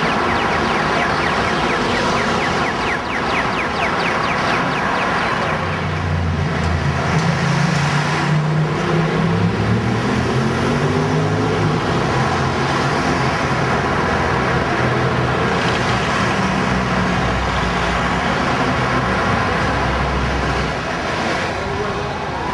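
City road traffic with a motor vehicle's engine running; partway through, the engine's pitch climbs as it accelerates.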